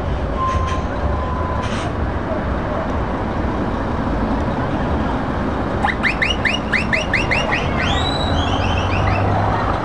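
Heavy lorry diesel engines running at low speed as a Renault T tractor unit pulls past, a steady low rumble that grows heavier near the end. About six seconds in, a loud electronic siren-like signal sounds: a quick run of rising chirps for two seconds, then a rising whoop and a few falling chirps.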